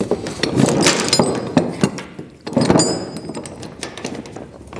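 Tie-down chain links rattling and clinking as the chain is pulled and handled, in two bouts of clatter: one at the start lasting about a second, another about two and a half seconds in.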